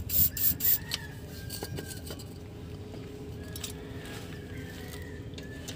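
Aerosol spray can hissing in short quick bursts, about four a second, as it is sprayed onto a bolt under a vehicle. The bursts stop about a second in, leaving only a faint steady background.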